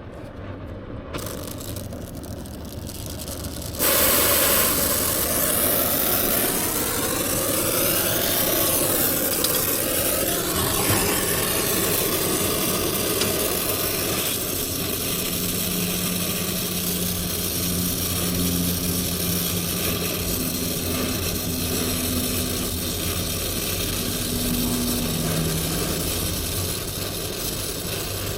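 Brazing torch lit about four seconds in, then its flame running steadily as it heats the copper refrigerant line joints on a failed compressor to unsweat them. A faint low hum comes and goes in the second half.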